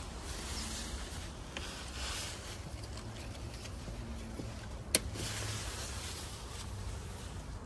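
Cherimoya leaves and branches rustling as fruit is handled and picked, with one sharp snap about five seconds in, over a steady low rumble.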